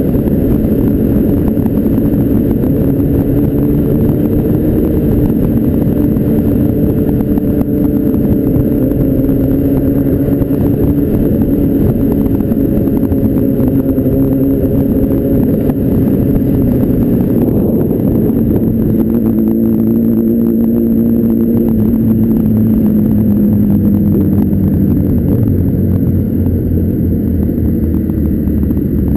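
Motorcycle engine running steadily at cruising speed under the rider, its note easing a little lower past the middle.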